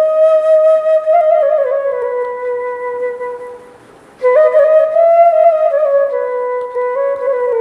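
Solo bashi (Bengali bamboo flute) playing a slow, sorrowful melody as a single line. The first phrase tapers off about three and a half seconds in, and after a short breath a new phrase starts just after four seconds.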